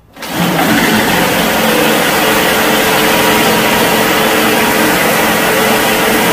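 Engine of a homemade tracked tank running steadily.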